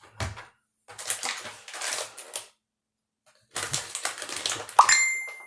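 Crinkly rustling and clatter of makeup items and their packaging being handled, in two spells after a light thump. Near the end comes a short ringing chime, a phone's text-message alert.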